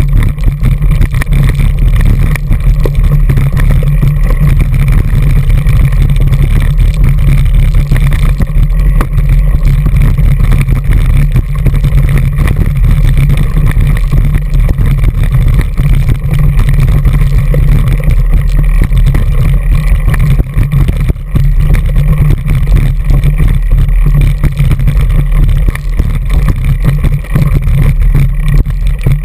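Mountain bike ridden fast down rocky singletrack, heard through a handlebar-mounted GoPro Hero2: a loud, constant low rumble of wind and trail vibration, with many small knocks and rattles as the tyres strike the rocks.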